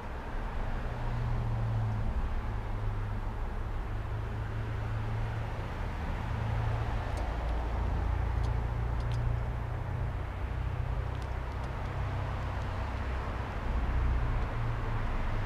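Steady outdoor rumble of distant road traffic, with a few faint short high ticks in the middle.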